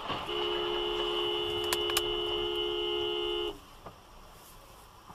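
Car horn held for about three seconds in two steady, close tones, then cut off abruptly, with a couple of faint clicks partway through, over low road noise.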